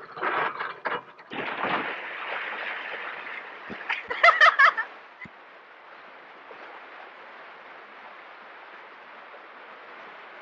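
Water rushing into a lock through opened sluices, a steady hiss that drops to a lower level about five seconds in. Near the middle comes a short burst of high yelps.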